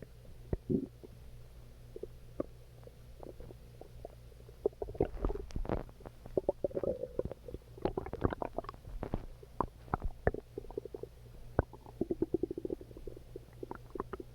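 Human stomach growling and gurgling: scattered pops and bubbly rumbles that become a dense run of gurgles about a third of the way in, with another quick rattle of gurgles near the end.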